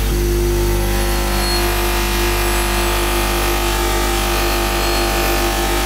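Bench grinder motor running at steady speed with a soft cotton buffing wheel spinning, giving a steady hum, while an SU carburettor dashpot is held against the wheel and buffed with polishing compound.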